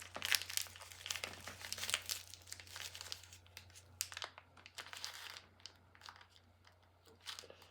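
Plastic packaging crinkling and tearing as a small toy blind bag is opened by hand, a dense run of rustles for the first few seconds, then only a few scattered crinkles.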